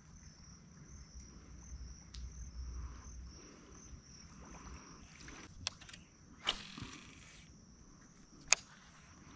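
Faint, steady high-pitched insect chorus from the mangroves, with a few sharp clicks and knocks and a short rushing noise about six and a half seconds in.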